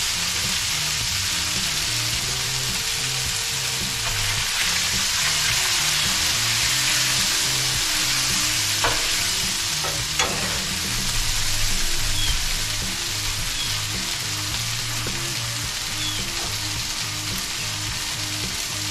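Beef and soy sauce sizzling steadily on a Blackstone flat-top griddle, with two sharp clicks about nine and ten seconds in.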